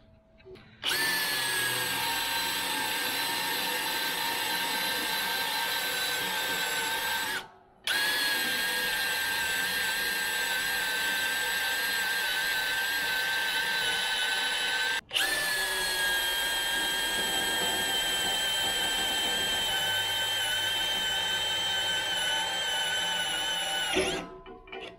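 Cordless drill running under load, boring through 3/4-inch steel plate. The motor gives a steady whine that drops a little in pitch as each run starts cutting. It goes in three long runs, with brief stops about 7 seconds and 15 seconds in, and stops near the end.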